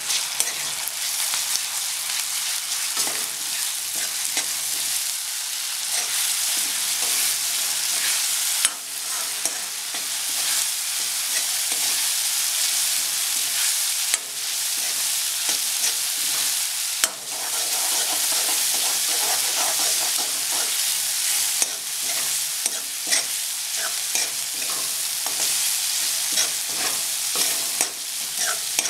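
Spice paste sizzling in hot oil in an aluminium kadai, with a metal spoon scraping and clinking against the pan as it is stirred.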